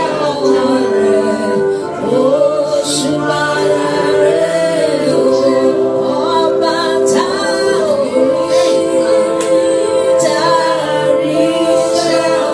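Slow worship music: singing voices holding long, sustained notes that glide between pitches.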